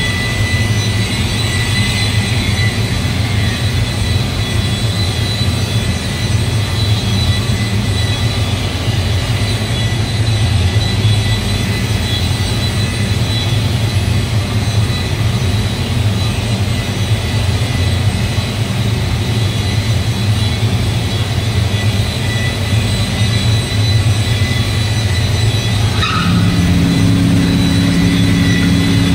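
Electric car paint polisher running steadily as the paint is machine-buffed, a constant motor hum with a thin high whine. About 26 seconds in there is a click and the hum changes, a new pair of steadier tones joining it.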